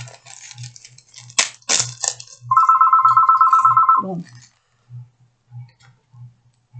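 Telephone ringing once: a warbling two-tone electronic trill lasting about a second and a half, preceded by two sharp clicks.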